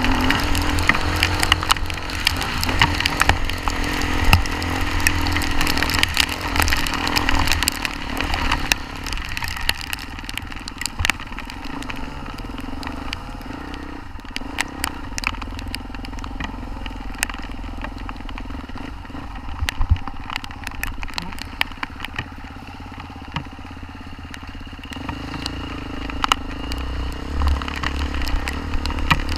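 Off-road motorcycle engine running during a ride, with a constant crackle and clatter of knocks over it. The engine eases off in the middle and picks up again near the end.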